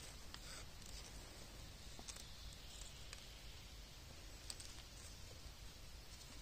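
Near silence: faint outdoor background hiss with a few soft, isolated clicks.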